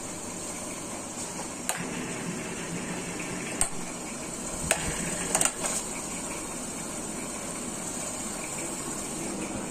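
Evaporative air cooler running: a steady whir and hiss from its fan and circulating water, with four sharp clicks in the first half. The fan is running slowly, the fault the owner is showing.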